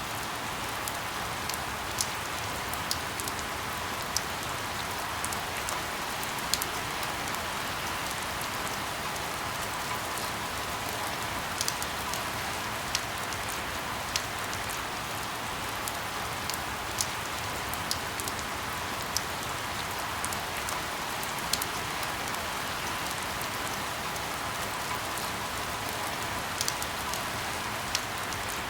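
Steady rain falling, an even hiss with frequent sharp drip ticks scattered through it.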